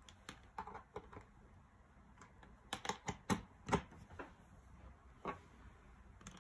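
Irregular sharp clicks and knocks from a phone security display stand being handled. A few light clicks come early, then a louder cluster of about five knocks a little under a second apart around the middle, then a couple of isolated clicks. No alarm tone is heard.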